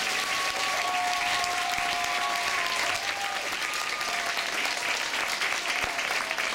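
Audience clapping and applauding at the end of an acoustic guitar performance, with a few long, high whoops over the clapping in the first three seconds or so.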